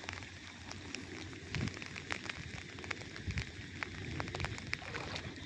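Light rain pattering, with scattered sharp drop clicks on the microphone over an irregular low rumble of wind buffeting.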